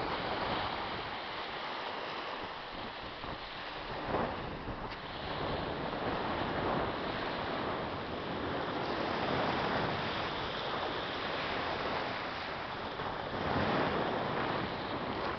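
Small sea waves breaking and washing up the beach, swelling and fading every few seconds, with wind buffeting the microphone.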